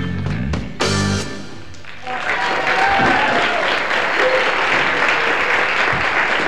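A live rock band (electric guitar, drums, keyboards) plays the last beats of a song and ends on a final hit that rings out for about a second. Then a studio audience bursts into steady applause.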